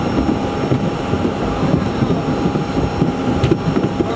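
Aircraft engines running steadily on the apron: a constant noise with a thin whine held on one pitch.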